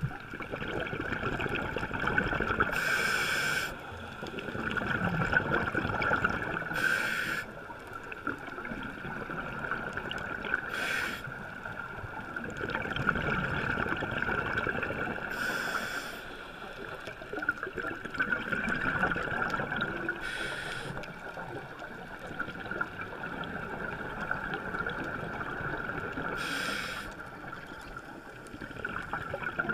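A scuba diver breathing through a regulator underwater: a bubbling swell about every four to five seconds, each with a short sharp hiss, over a steady high-pitched hum.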